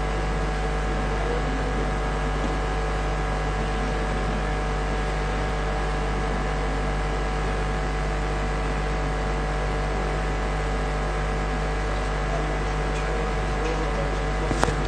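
Steady hum and hiss, with a few fixed tones over a strong low drone, and a short click near the end.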